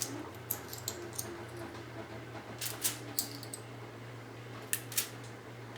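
Toonies, Canadian two-dollar coins, being set one at a time into a tinfoil boat, giving several light clicks of metal on foil, some in quick pairs, over a steady low hum.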